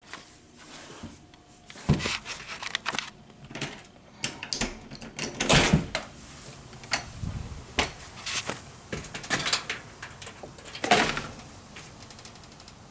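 Irregular knocks, clicks and rattles of things being handled, with heavier thumps about two seconds in, around five and a half seconds, and near eleven seconds.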